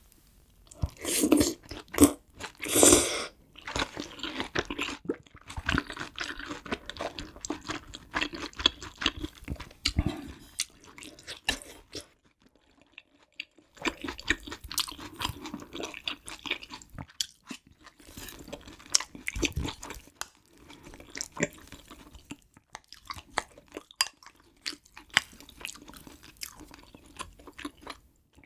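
Close-miked chewing of a mouthful of kimchi stew with kimchi and ramen noodles: many short, wet mouth clicks and squelches. The loudest come in the first three seconds, with a short lull a little before the middle.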